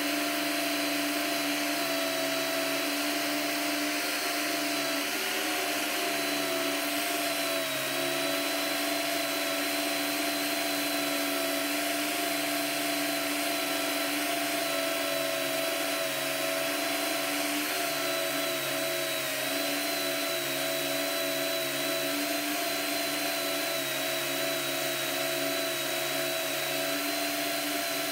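Power drill spinning a wire wheel brush at speed, its motor giving a steady whine whose pitch dips slightly now and then as the steel chuck of a 1930s IXION hand drill is pressed against the bristles to scrub off rust.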